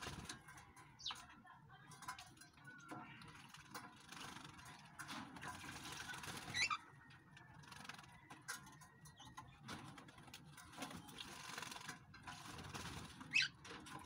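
Small aviary birds bathing in shallow water dishes: bouts of splashing and wing-fluttering, with a few short, sharp bird calls, the loudest near the end.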